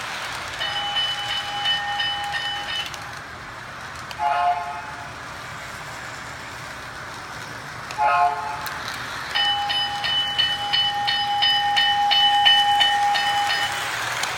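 Sound effects from a Lionel O-gauge New York Central freight train set's speaker, played over the steady running noise of the train on its track. A ringing bell sounds for about two seconds, then come two short horn toots, then the bell rings again for about five seconds.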